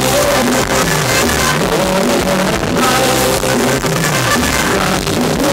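Live Thai ramwong dance music from a band with guitar, played loud through a stage PA system.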